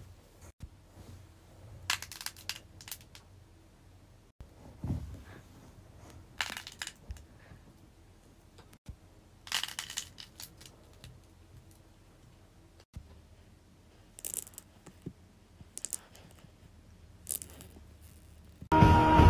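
Small fidget toys squeezed and pressed by hand, giving short crackling, crinkling bursts every few seconds. Loud music with singing begins near the end.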